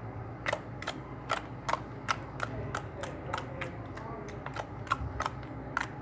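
Clear slime being squeezed and kneaded by hand, making sharp, irregular clicking pops, about two or three a second.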